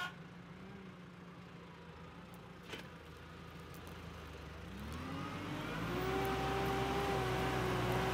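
Tractor engine running low and steady with a few light clicks, then revving up about four and a half seconds in and holding at a higher, louder engine speed.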